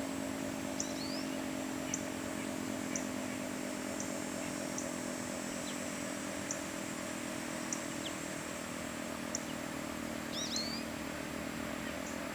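Federal Signal 2T22 two-tone tornado siren sounding a low, steady drone at the tail of its alert, a little fainter by the end. Birds chirp over it, with a quick pair of calls near the end.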